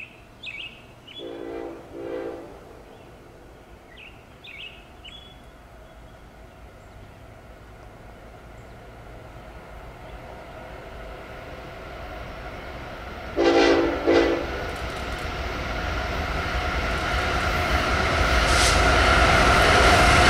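Approaching Norfolk Southern freight train sounding its diesel locomotive air horn twice, each time one longer blast and one shorter; the second pair is much louder. Under it the rumble of the lead diesels builds steadily as the train closes in, and is loudest near the end.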